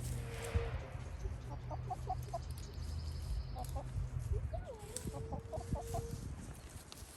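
Chickens clucking in short clusters of notes, with one drawn-out call about five seconds in. A low steady rumble sits underneath and stops about four and a half seconds in.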